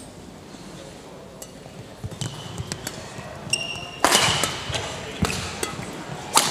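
Badminton rally: racket strikes on the shuttlecock and shoes squeaking on the court floor. They start about two seconds in, with the loudest hit about four seconds in and single strikes after it.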